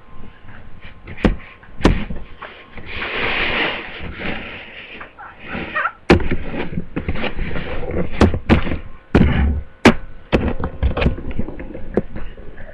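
Irregular knocks, clicks and thumps of a door and of the camera being handled and carried, with a short rustling stretch about three seconds in.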